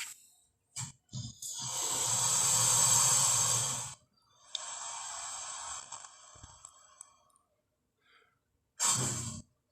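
Giant mutated crocodile creature sound effects: a loud hissing breath with a low rumble beneath it for about two and a half seconds, then a quieter hiss, a pause, and a short loud exhale near the end.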